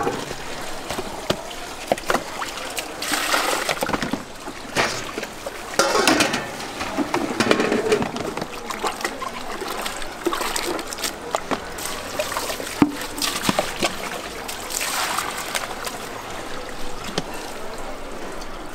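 Water splashing and sloshing in irregular bursts as cooked thin wheat noodles are drained in a plastic colander and rinsed by hand in a basin of water, with scattered clicks of plastic being handled.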